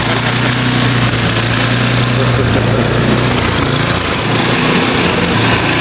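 An engine running steadily, a low hum under a continuous hiss.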